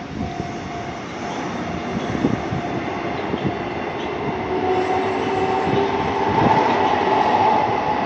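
Kintetsu electric train running through a level crossing, its wheels clacking over the rail joints, with a whining tone joining about halfway through. The crossing's warning bell rings steadily throughout.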